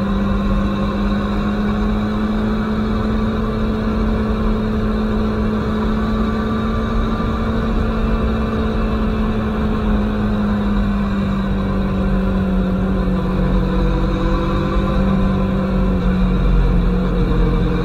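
Aprilia Tuono motorcycle engine running at a steady cruise over a low rush of wind and road noise. Its note sags slightly in pitch partway through, then rises again near the end as the bike picks up speed.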